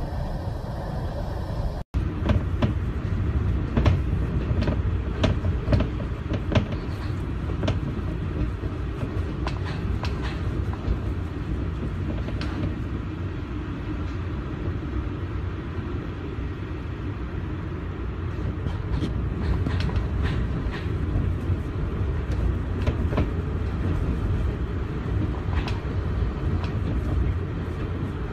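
Hurricane-force wind and heavy rain blowing hard, rumbling on the microphone, with frequent short cracks and knocks throughout.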